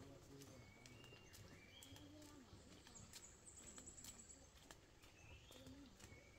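Near silence with faint rural outdoor sound: short bird calls repeating every second or so, and soft footsteps on a dirt road.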